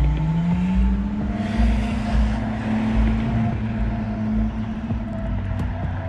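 Road traffic: a car's engine note rises as it accelerates over the first second or so, then holds steady, with tyre noise swelling about two seconds in.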